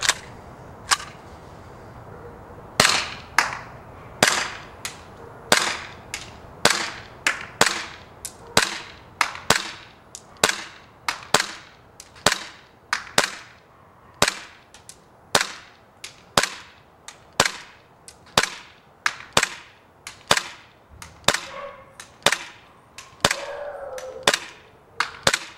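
KSC (KWA) Glock 17 gas blowback airsoft pistol firing a long string of single shots, each a sharp crack with its slide cycling, about one to two a second, emptying a magazine.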